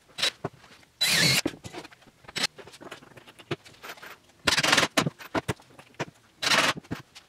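Cordless impact driver driving screws into plywood cabinet panels in three short bursts, each under half a second, with small knocks and clicks between.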